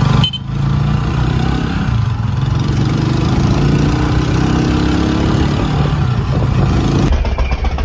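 A motor vehicle's engine running close by, its pitch drifting up and down, with a short break just after the start.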